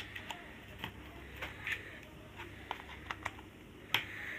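Hard plastic parts of a children's projector drawing table being handled and fitted together, giving irregular clicks and knocks. The loudest knock comes about four seconds in.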